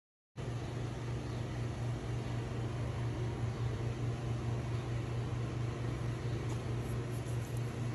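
A steady low hum over a constant hiss, which starts suddenly a moment in.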